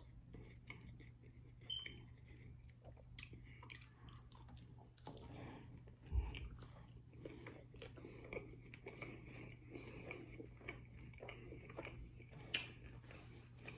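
Close-up chewing and crunching of a hard-shell ground-beef taco, the shell coated in melted American cheese, heard as soft scattered crackles over a steady low hum. A louder low thump comes about six seconds in as the taco is bitten, and a sharp click near the end.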